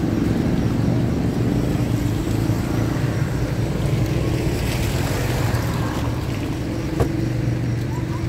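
Steady low motor hum with a single click about seven seconds in.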